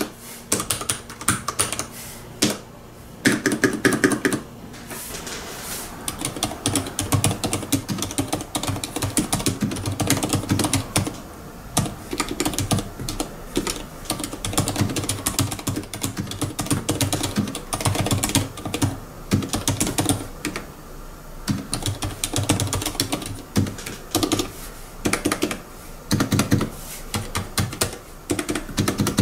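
Fast typing on a Hansung TFG ART tenkeyless mechanical keyboard with Cherry switches: rapid runs of keystroke clacks with short pauses.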